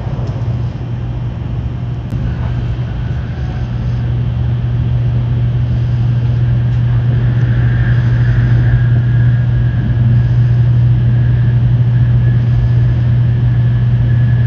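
Tokaido Shinkansen train running, heard from inside the car: a steady low hum, growing slowly louder, with a high whine coming in about halfway.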